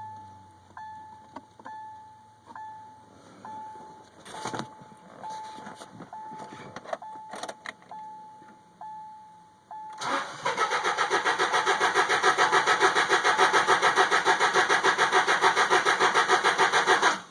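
A car's warning chime beeping over and over, with a few clicks and a clunk. About ten seconds in, a 2002 Subaru Outback's flat-four engine cranks on the starter for about seven seconds in an even rhythm, then stops suddenly without catching: a crank-no-start with the fuel pump fuse in place.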